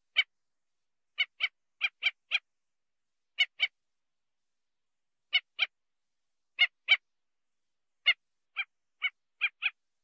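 Black-necked stilt giving short, sharp call notes, mostly in pairs and short runs of two or three, with brief pauses between.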